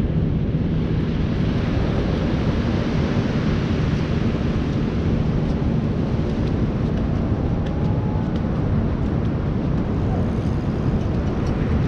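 Steady wind rumbling on the microphone over the wash of ocean surf.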